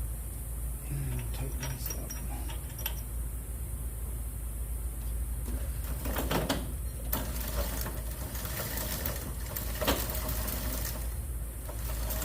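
Scattered metallic clicks and clinks of a roller drive chain and its master link being handled and fitted, loudest in a cluster about halfway through and once near the end, over a steady low rumble.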